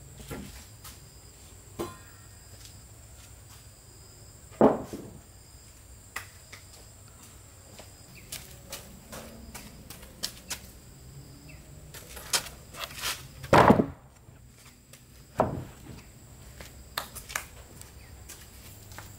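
Irregular knocks and thuds of wood being handled and struck, about a dozen over the stretch, the loudest about two-thirds of the way through.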